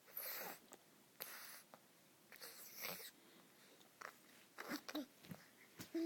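Baby making breathy, unvoiced huffing noises, three puffs in the first three seconds, then a few short little voiced squeaks near the end.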